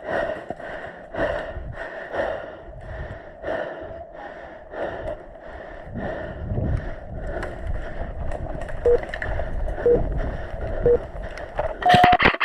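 A person breathing hard, a rhythmic sound about twice a second, while moving through the field. Three short tones about a second apart come late on, and right at the end a rapid burst of airsoft gunfire starts.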